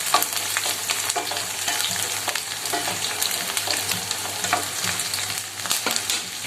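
Chopped shallots, garlic and whole spices frying in hot sesame oil, a steady sizzle with many short scraping clicks as a spatula stirs them in the pan.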